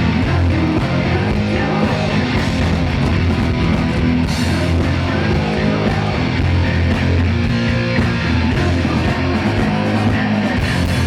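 Heavy metal band playing live, loud electric guitar to the fore over a full band.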